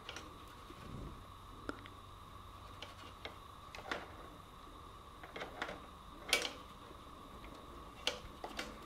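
Light handling noise from a borescope probe and its cable being worked in an engine's spark plug hole: a dozen or so scattered small clicks and rustles, the loudest about six seconds in. Under them runs a faint steady electrical hum.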